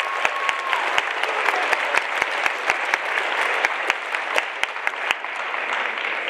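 Audience applauding in a school auditorium, with a few loud, regular claps of about four a second standing out over the crowd's clapping. The applause dies away near the end.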